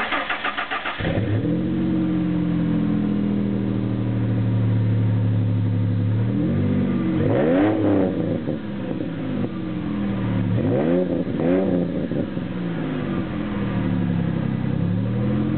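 1999 Ford Mustang with Flowmaster mufflers: the starter cranks for about a second, then the engine catches and idles through the exhaust. It is revved in short blips: a pair about seven seconds in, another pair about eleven seconds in, and once more near the end.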